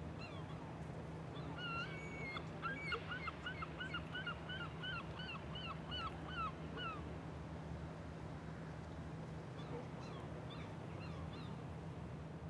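A bird calling outdoors in a rapid series of about twenty short, clipped calls, roughly three a second, that stops a few seconds in. A few faint calls come later. A steady low hum runs underneath.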